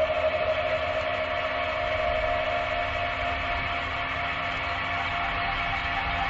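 A steady droning hum: several held tones over a low rumble and hiss, unchanging throughout.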